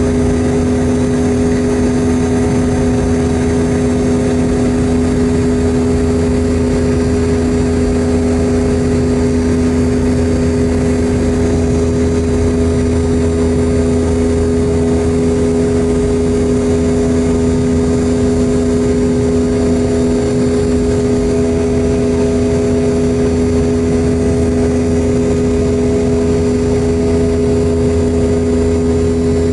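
Boeing 717-200's rear-mounted Rolls-Royce BR715 turbofan at climb power after takeoff, heard inside the cabin right beside the engine: a loud, steady jet roar with a constant droning hum.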